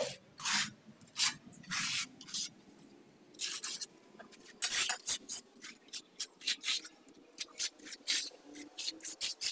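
Trowel scraping and spreading cement mortar across the back of a ceramic floor tile in short repeated strokes, coming quicker in the second half.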